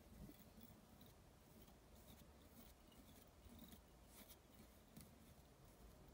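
Near silence, with faint scattered ticks and rustles from fingers handling tying thread and a bobbin holder at a fly-tying vise.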